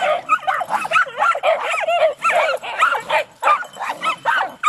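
Several small hunting dogs, young Jagdterriers among them, barking and yipping at a raccoon in rapid, high, overlapping calls, several a second.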